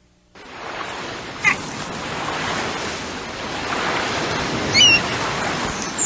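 Ocean surf washing steadily, coming in a moment after a brief silence and swelling slightly midway. A few short high calls slide downward over it, one about a second and a half in and a quick run of them near five seconds.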